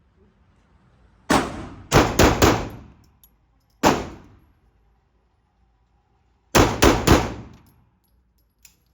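9mm handgun shots echoing in an indoor range: a single shot, then three in quick succession, another single shot, and three more in quick succession near the end.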